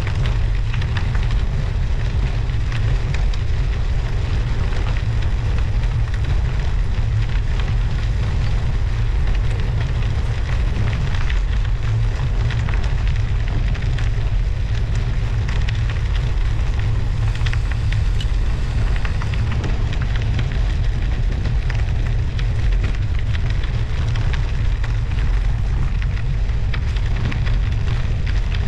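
Wind buffeting an action camera's microphone on a moving bicycle, a steady low rumble, over a dense crackle of studded winter tyres rolling on snow and ice.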